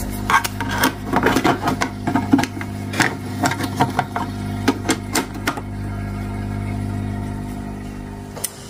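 Plastic feeding hatch on an aquarium lid being handled and shut: a quick run of small clicks and taps over the first five seconds or so, over a steady low hum.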